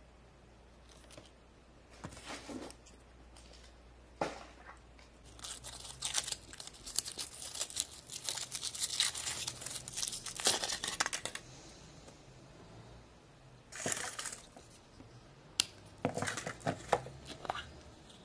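Foil wrapper of a chocolate egg crinkling and tearing in bursts as it is peeled off by hand, with a single sharp click a few seconds before the end as the plastic toy capsule is snapped open.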